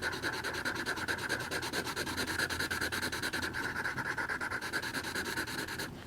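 Felt-tip Sharpie marker scribbling on drawing-pad paper: rapid back-and-forth colouring strokes in a fast, even rhythm that stop abruptly near the end.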